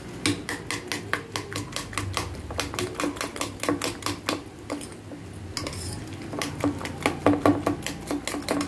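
Metal spoon beating eggs and chopped vegetables in a stainless steel bowl, clinking against the bowl's sides several times a second in a quick, steady rhythm.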